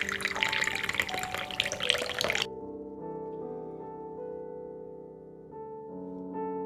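A brown drink poured into a glass of ice cubes: liquid hissing and splashing with small clicks, stopping abruptly about two and a half seconds in. Soft piano music plays throughout.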